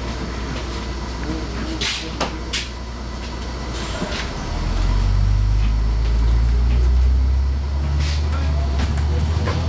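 Van Hool AGG300 double-articulated bus heard from inside the cabin: a low engine and drivetrain rumble that grows much stronger about halfway through as the bus pulls under load, then eases near the end. Scattered rattles and clicks come from the bus interior.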